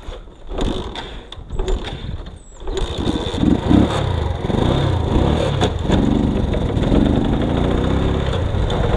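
Footsteps crunching through dry leaves and twigs, sharp crackles for about three seconds, then a loud, steady low noise sets in abruptly and continues.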